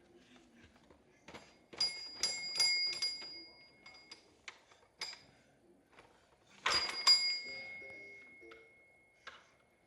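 A small metal bell or chime struck several times in quick succession about two seconds in, then twice more near seven seconds, each time leaving a ringing tone that fades away, with light knocks and taps in between.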